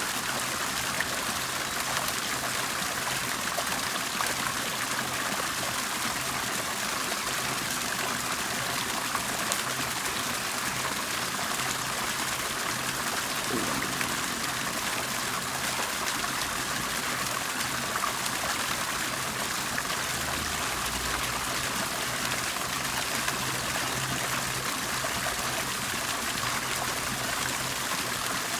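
Water bubbling and trickling steadily, a continuous even rush with no pauses.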